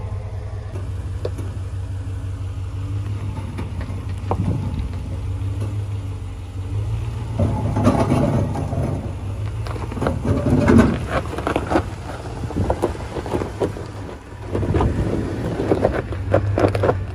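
A Ram Rebel pickup's engine runs low and steady as the truck crawls over a rocky ledge. From about seven seconds in, rocks and gravel crunch and crack irregularly under the tyres, with the loudest crunches around the middle.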